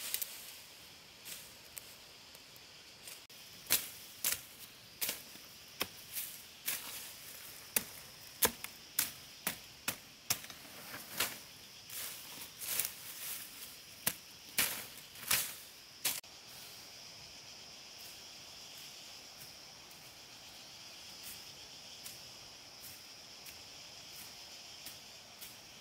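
A run of sharp striking strokes, irregular, one or two a second, stopping about two thirds of the way through. Insects keep up a steady high buzz.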